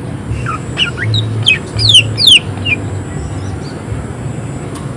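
Cucak ijo (green leafbird) singing a fast run of sharp, falling whistled notes in the first half, the loudest about two seconds in, then pausing. A steady low hum runs underneath.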